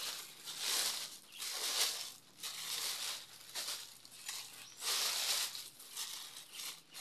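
Thin packing paper crinkling and rustling in irregular surges as it is pulled and crumpled off a mug being unwrapped.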